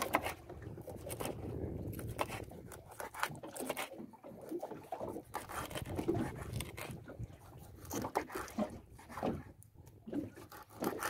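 Knives chopping fish on wooden cutting boards, two people cutting at once: a run of irregular knocks and crunches.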